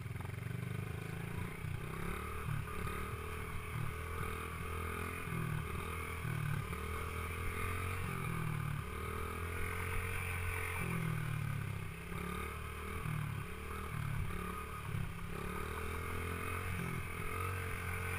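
Small dirt bike engine running while the bike is ridden, its revs rising and falling every second or so as the throttle is worked on and off.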